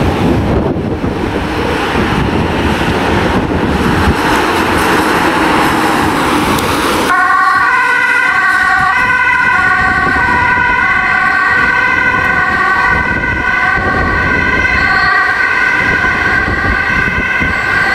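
Ambulance driving off with a rough rush of engine and wind noise, then about seven seconds in its two-tone siren switches on abruptly and keeps alternating between a high and a low note.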